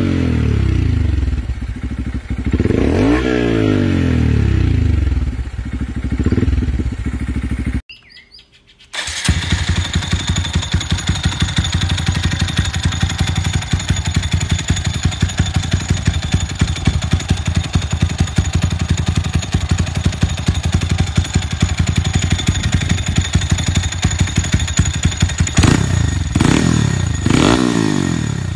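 Honda Monkey 125 single-cylinder four-stroke engine through an aftermarket exhaust, blipped three times with the pitch rising and falling on each. After a second's break it settles into a steady idle with an even rapid pulse, then is blipped twice more near the end.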